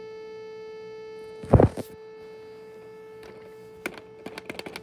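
VTech toy carousel buzzing with one steady tone as its batteries run low. A loud knock comes about one and a half seconds in, and a run of sharp clicks follows near the end.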